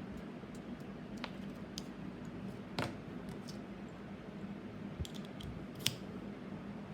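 A few sharp, light clicks and taps, scattered irregularly over a steady low hum.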